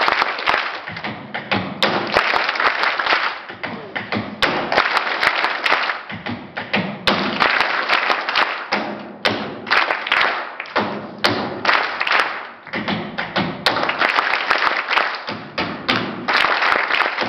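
Hand clapping and thuds on a stage floor, coming in bursts a second or two long with short lulls between.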